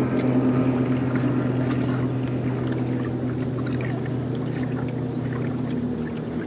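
A boat motor running with a steady hum, easing slightly about six seconds in, with a few faint small ticks.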